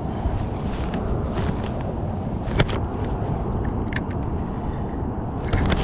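Steady low rumble of wind buffeting the microphone, with a couple of sharp clicks and a burst of rapid clicking near the end.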